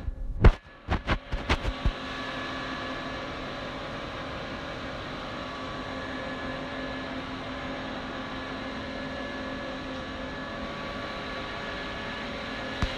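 A few sharp knocks in the first two seconds, then a steady mechanical hum carrying several steady tones, like running workshop machinery.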